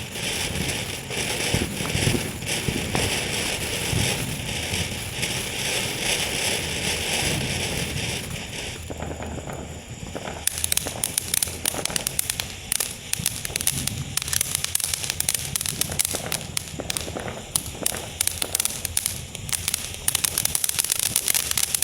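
Consumer fireworks going off: a steady hissing spray for about the first half, then rapid, dense crackling that keeps on to the end.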